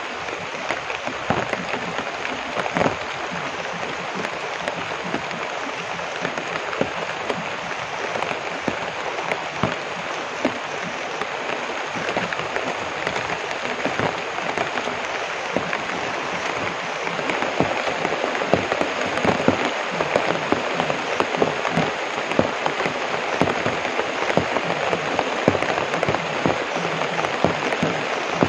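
Heavy rain falling: a dense, steady patter of countless drops that grows a little louder about two-thirds of the way through.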